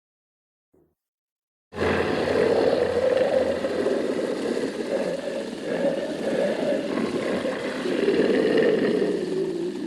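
Gaira kaiju sound effect: one long, rough roar that starts after a second and a half of silence and holds for about nine seconds.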